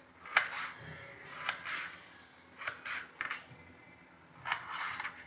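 Small kitchen knife slicing a tomato held in the hand: about six short cuts at uneven intervals, each a sharp click followed by a brief rasp.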